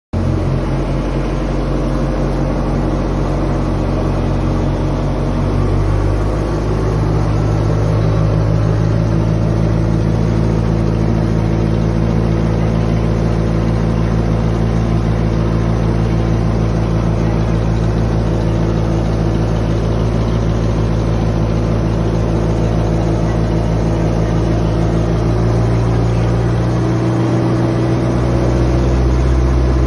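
Ferry's engine running steadily with a low hum. Its note shifts about six seconds in and again near the end.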